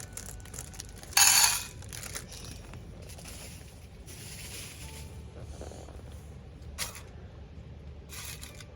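Plastic packet of kaki no tane rice crackers being opened and handled. There is one loud crinkle about a second in, then several softer rustles.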